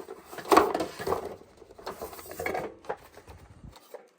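Handling noise of hard objects: a series of knocks and clatters, the loudest about half a second in and another cluster about two and a half seconds in.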